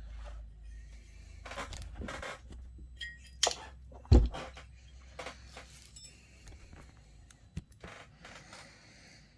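Irregular metallic clinks and clicks of tools and small metal chainsaw parts being handled, with a heavier knock about four seconds in.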